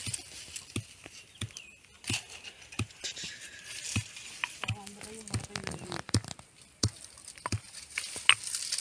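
Pestle pounding rice grains in a small mortar: a steady run of dull thumps, a little over two a second, crushing the Mappillai Samba rice into flour for porridge.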